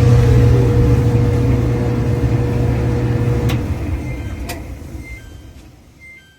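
Clothes dryer's motor and drum running with a steady loud hum, then switched off about three and a half seconds in and coasting down to a stop, with a couple of sharp clicks as it winds down.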